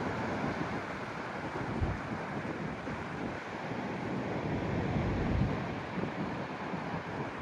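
Sea waves washing in under strong wind, with gusts buffeting the microphone in low rumbles; the sound swells a little about five seconds in.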